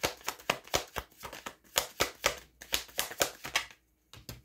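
Tarot deck being shuffled by hand: a quick run of card slaps and riffles, about five a second, that stops near the end.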